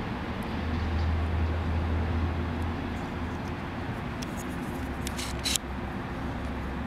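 Steady low rumble with a few light clicks about four and a half to five and a half seconds in.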